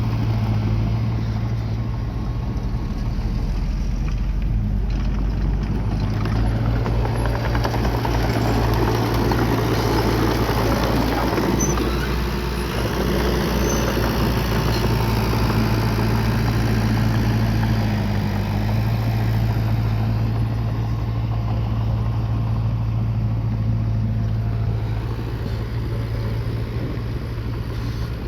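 Bulldozer's diesel engine running at a steady pitch, with a deep even drone throughout. A thicker layer of mechanical noise swells through the middle stretch while the machine works.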